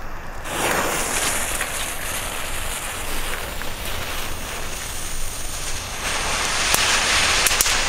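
Youth-firework crackle tube burning on the ground, hissing steadily as it sprays sparks and getting louder after about six seconds, with a few faint crackles near the end. It gives only very gentle, quiet crackling, a weak crackle effect.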